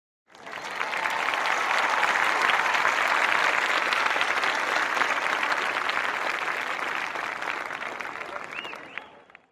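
Applause from a crowd, many hands clapping, swelling up in the first second, holding steady, then dying away over the last couple of seconds. A short whistle sounds near the end.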